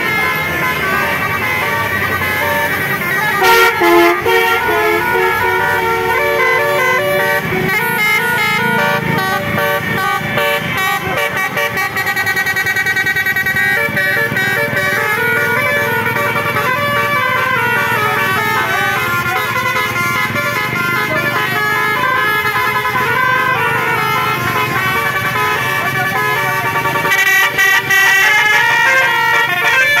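Tour buses' multi-tone 'telolet' air horns playing melodies, several horns at once, their notes stepping up and down without a break. A steady engine rumble runs underneath.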